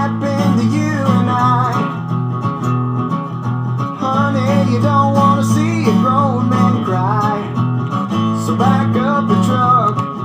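Country song with strummed acoustic guitar over a full band, playing on steadily.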